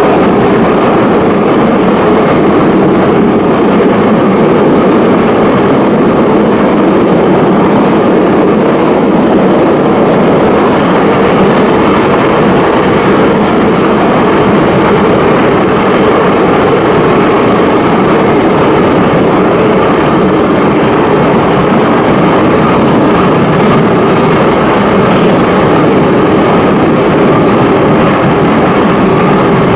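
Interior of a Soviet-type 81-714 metro car running steadily at speed through a tunnel: a continuous loud rumble of wheels on rail and running gear.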